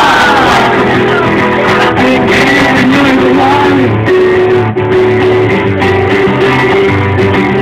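Acoustic guitar played live, with a man singing over it for the first few seconds, then the guitar alone.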